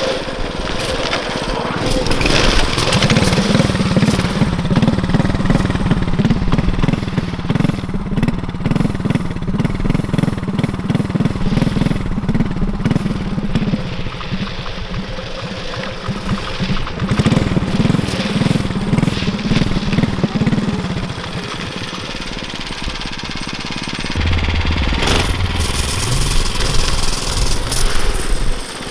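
Tillotson 212 single-cylinder engine on a drift trike running and revving up and down, easing off for a few seconds about two-thirds of the way through, then picking up again near the end.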